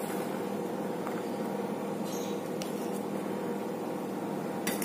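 A steady mechanical hum with a few faint, light clicks.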